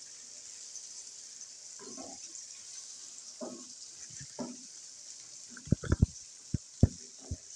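Masala of onion, tomato and spices sizzling gently in oil in a non-stick wok, with soft scraping strokes of a wooden spatula stirring it. A few sharp knocks near the end.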